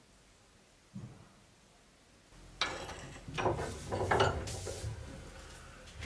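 A steel bench vise being clamped on a rusty cleaver blade. A low knock comes about a second in, then about three seconds of clicking and clanking metal as the vise is worked.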